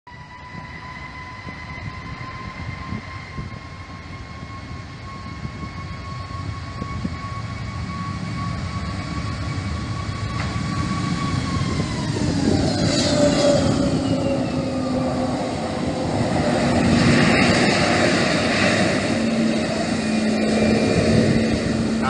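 Airbus A320-family airliner's jet engines on a takeoff roll. A steady high whine drops in pitch about twelve seconds in as the aircraft passes, while the engine noise grows louder and surges. The takeoff is rejected after a bird strike.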